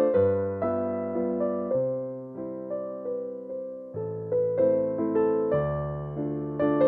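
Calm piano music: notes and chords struck one after another and left to ring out and fade.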